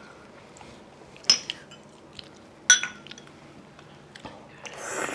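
Cutlery clinking against dishes during a meal: two sharp ringing clinks about a second and a half apart, a few faint ticks, and a soft swell of noise near the end.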